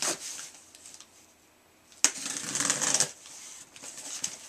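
Cardboard shipping box being opened by hand: a short scrape at the start, then about two seconds in a sudden, second-long tearing noise, followed by softer rustling of the cardboard flaps.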